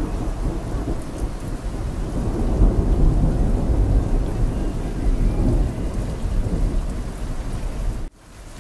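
Heavy rain with a long rolling rumble of thunder, loudest in the middle. Near the end the rumble breaks off abruptly, leaving only quieter rain.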